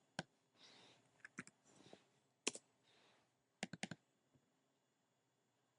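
Faint, scattered clicks from a computer being operated: a single click, a pair, another single, then a quick run of about four, with brief soft hiss between.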